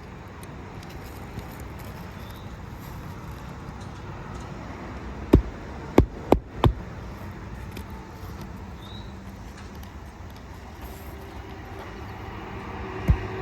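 A hammer driving a roofing nail into asphalt shingles: four sharp strikes in quick succession about five and a half seconds in, over a steady low background rumble.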